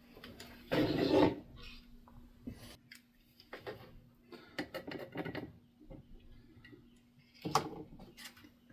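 Small handling sounds at a workbench while a desoldered circuit board is cleaned: irregular rubbing and scraping with light clicks, loudest about a second in and again near the end, over a faint steady hum.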